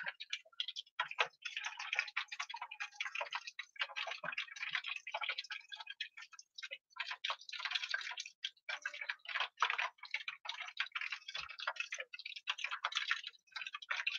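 Battered cod pieces deep-frying in hot oil, sizzling with a dense, irregular crackle of small pops.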